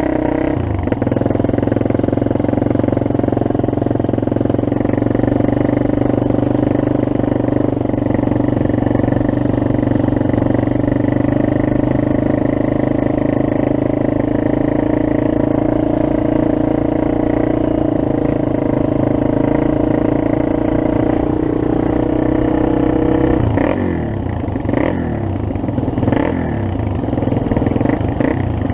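Small off-road vehicle engine running at a steady speed on a gravel trail. About five seconds before the end, the engine note drops and a few knocks and rattles follow.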